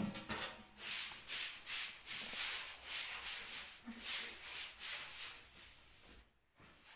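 A short grass hand broom sweeping a bare floor in quick, even swishes, about two to three strokes a second, after a short knock at the start.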